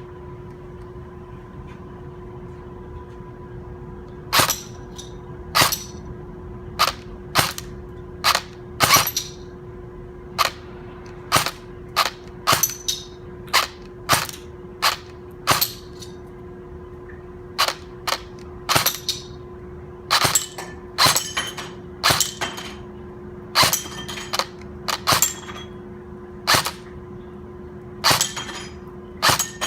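Airsoft gun firing single shots, sharp cracks at an irregular pace. They begin about four seconds in, come roughly once a second, then closer together, some in quick pairs. A steady hum runs underneath.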